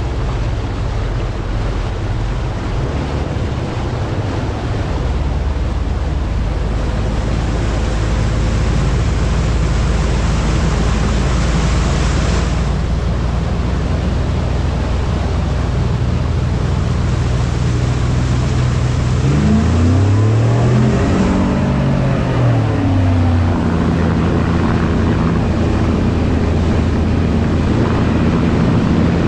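Steady wind noise and low rumble on the microphone. About twenty seconds in, a vehicle passes by, its sound swelling and fading over a few seconds.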